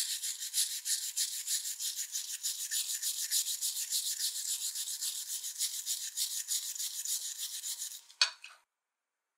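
Small brass wire brush scrubbing the rusty blade of a tobacco cutter in a dish of liquid, in rapid even back-and-forth strokes. The scrubbing stops near the end with a single short knock.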